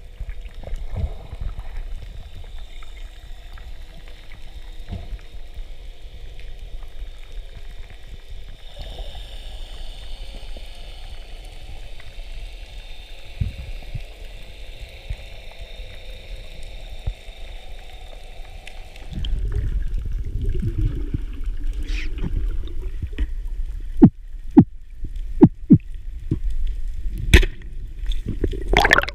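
Underwater water noise picked up by an action camera in its housing: a low steady rumble and hiss, turning into louder churning water about two-thirds of the way in. Several sharp knocks near the end.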